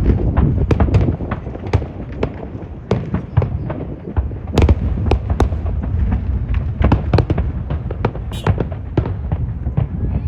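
Fireworks display: a rapid, irregular run of bangs and crackles, several a second, over a continuous low rumble.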